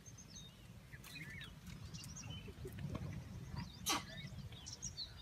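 Small birds chirping in short, curving calls over a low steady rumble, with one sharp crack-like sound a little before the end.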